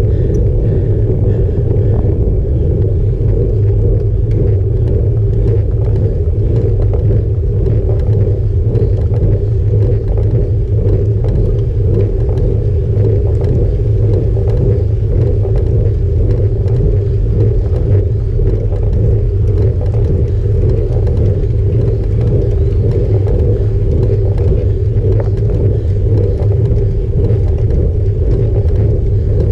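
Steady low rumble of a road bicycle rolling on a paved road, with tyre and road vibration carried into a handlebar-mounted camera.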